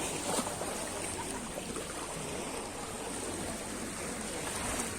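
Steady rushing and splashing of sea water.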